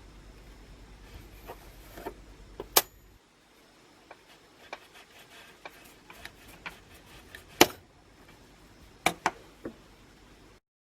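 Scattered small clicks with three sharp knocks, about three, seven and a half and nine seconds in.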